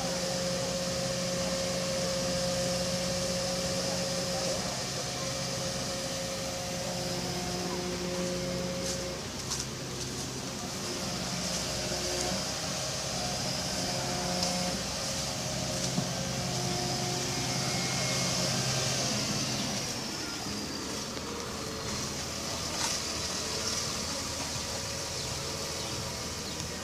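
Fire truck's engine running to power a Magirus turntable ladder, a steady hum whose pitch steps up and down as the ladder is worked, with a hiss underneath.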